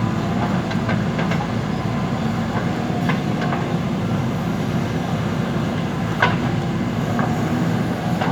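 JCB 3DX backhoe loader's diesel engine running steadily under work, with a few sharp metallic clanks from the machine, one about a second in, one about three seconds in and a louder one about six seconds in.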